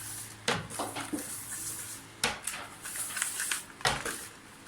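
Sharp clicks and knocks of hand tools and small parts being handled while the cord is detached from a vacuum cleaner's cord-reel assembly. There are three distinct knocks, about a second and a half apart.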